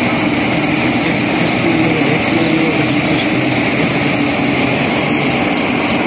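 New Holland combine harvester running close by as it cuts ripe rice: a loud, steady drone of engine and threshing machinery.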